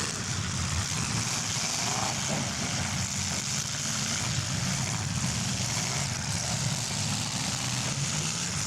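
Several demolition derby big cars' engines running together in a steady, loud din.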